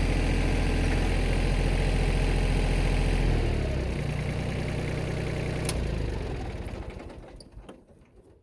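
An engine idling steadily, then shut off about three seconds in: it slows and runs down, with a sharp click partway through, and has stopped by near the end.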